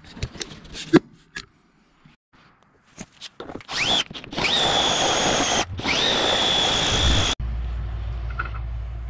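Milwaukee M12 cordless drill with a step bit boring through 3/8-inch steel plate. The motor whine rises as it spins up and then runs steady with the grind of the cut for about three and a half seconds, pausing briefly once and spinning up again before stopping abruptly. A few clicks and knocks come first, and a steady low hum remains after the drill stops.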